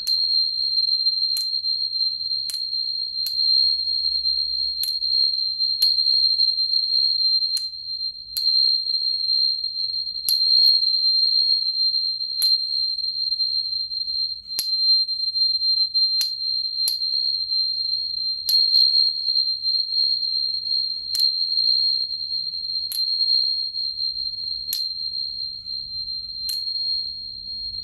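A pair of high-pitched 'Angels' tuning forks, 4225 Hz and 4160 Hz, ringing with a shrill, steady tone, struck again roughly once a second, each strike a sharp tap that renews the ring.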